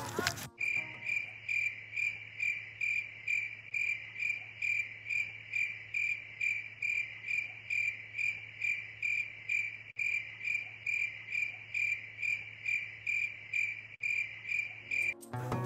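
Cricket chirping in an even rhythm, about two chirps a second, over a low steady hum; it starts abruptly and cuts off abruptly near the end.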